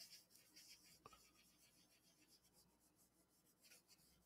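Faint, scratchy rustling of paper being handled and rubbed flat onto a sketchbook page, with one light tick about a second in.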